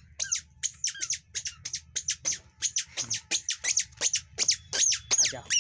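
A toddler's squeaky shoes squeaking with each quick step, a short high squeak falling in pitch about four times a second.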